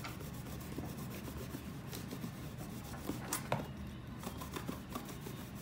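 Terry-cloth towel rubbing over a cardboard box: a steady dry scrubbing with scattered scuffs, a few sharper ones a little past three seconds in.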